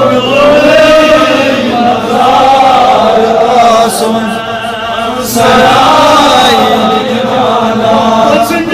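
A man chanting a naat, an Urdu devotional poem, in long melodic phrases with held, gliding notes, the voice amplified through a microphone; about four seconds in the chant goes softer for a moment before rising again.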